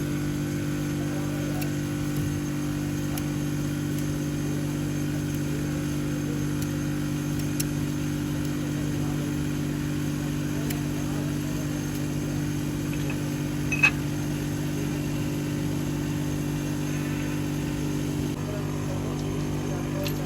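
A steady, unchanging machine hum runs throughout. About fourteen seconds in there is one sharp metallic clink, with a few faint ticks before it.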